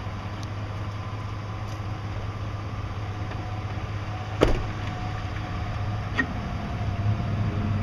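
Engine of the vehicle towing a magnetic sweeper, running steadily at low speed, with a single sharp knock about four and a half seconds in and a lighter tick about six seconds in.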